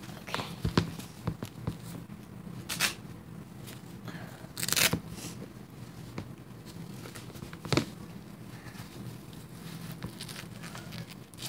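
A disposable diaper being unfolded and fastened, its papery layers crinkling and its tape tabs ripping open: a string of short rips and rustles, the longest about five seconds in.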